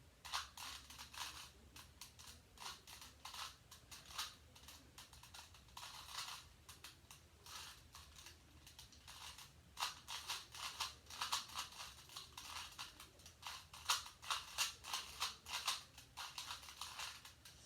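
Rubik's-type plastic puzzle cube being turned by hand, its layers clicking in quick, uneven bursts, coming thicker from about ten seconds in: the last moves of a solve.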